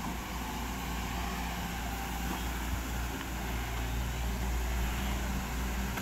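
Diesel engine of a SANY SY215 hydraulic excavator running steadily under load as it digs and lifts wet mud.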